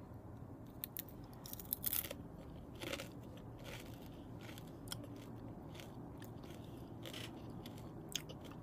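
Close-up crunching and chewing of a dried tarantula: irregular crisp crunches, most frequent in the first three seconds, then thinning out to occasional faint crackles as it is chewed down.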